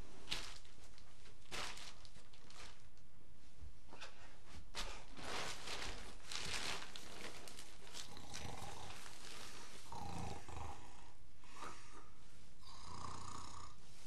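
A sleeping woman snoring. The first snores are breathy and noisy and come at irregular intervals. From a little past halfway the snores come every second or two and carry a buzzing tone.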